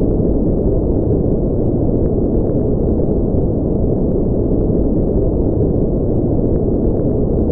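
Continuous white-noise sleep track: a steady, unchanging rushing hiss, deep and muffled, with its weight in the low end and nothing bright on top.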